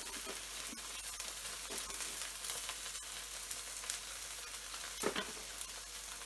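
Bánh xèo batter frying in oil in a nonstick wok: a steady sizzle with fine crackling. About five seconds in there is a brief louder rustle as bean sprouts are dropped onto the crepe.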